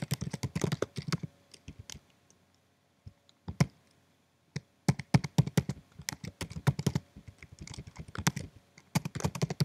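Typing on a computer keyboard: a fast run of key clicks, a pause of about three seconds broken by a couple of single keystrokes, then quick bursts of typing again from about five seconds in.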